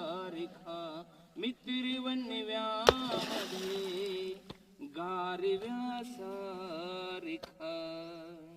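A solo voice singing long, wavering held notes of a Marathi song over a steady low drone. One sharp click about three seconds in, followed by a brief hiss, and the singing fades out at the end.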